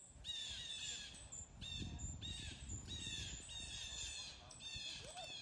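A bird calling over and over, about two short calls a second, each dipping in pitch at its end, over a faint low rumble of wind or handling noise on the microphone.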